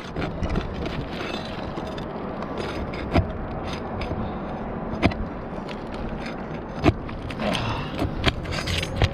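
Roofing nails being pried out from under shingles with a metal tool: scraping and rustling, with four sharp metal knocks about two seconds apart.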